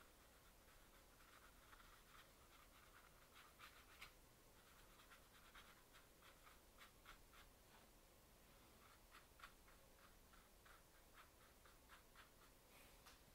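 Faint, irregular taps and scratches of a small round watercolour brush dabbing paint onto textured watercolour paper, a few strokes a second.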